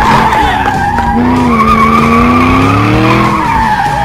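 Racing-car sound effect laid over the picture: loud, continuous engine revving that rises and falls, with a high, wavering whine over it.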